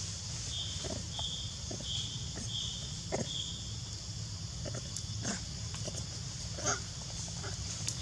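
Long-tailed macaques giving short, scattered grunts and squeaks, loudest about two thirds of the way through, over a steady high buzz. In the first half there is also a run of about six evenly spaced high chirps.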